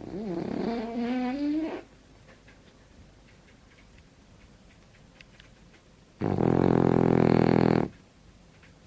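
French bulldog snoring: two loud snores about four seconds apart. The first wavers and rises in pitch; the second is a steady buzzing rattle.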